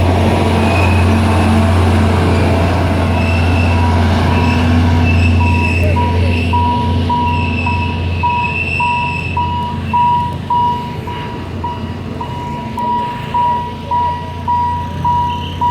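Level-crossing warning signal ringing a pulsing electronic tone about twice a second, over the low rumble and intermittent wheel squeal of a passing Alishan Forest Railway train; the train's rumble fades about six seconds in, leaving the crossing bell.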